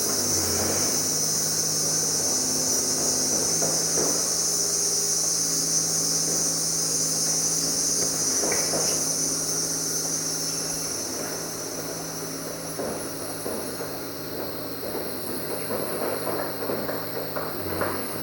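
Steady high-pitched chorus of jungle insects, weakening after about twelve seconds, over a low steady hum.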